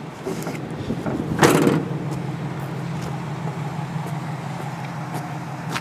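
A pickup tailgate is swung up and slammed shut about one and a half seconds in, with one loud clunk over a steady low hum.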